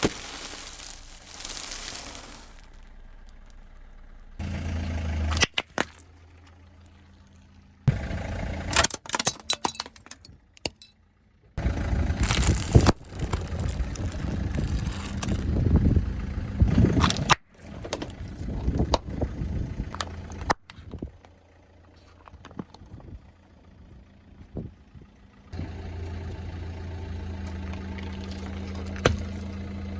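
Several separate bursts of crunching and cracking as a car rolls over and crushes objects, broken by abrupt cuts, with a loud dense stretch in the middle. A car engine idles steadily through the last few seconds.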